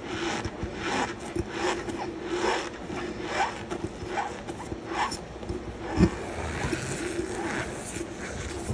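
Loose cornstarch being pressed and crushed by hand, giving a run of short crunching squeaks, roughly two or three a second. A single sharper thump about six seconds in is the loudest sound.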